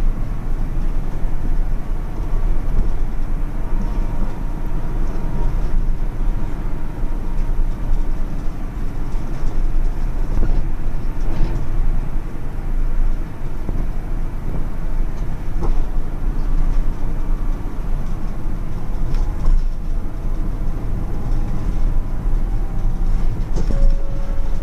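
Local train running at speed, heard from inside the carriage: a steady rumble of wheels on rails and running gear.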